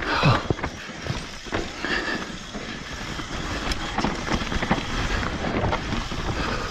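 Mountain bike riding fast down a rocky dirt trail: tyres rolling and crunching over rock and loose dirt, with frequent small knocks and rattles from the bike over a steady low rumble.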